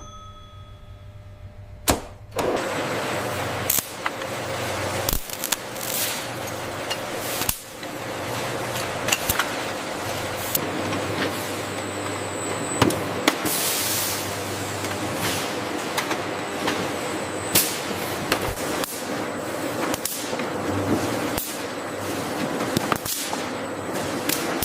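Factory machinery running: a steady mechanical hum and din, thick with scattered clicks and knocks, which starts abruptly about two seconds in after a quieter stretch.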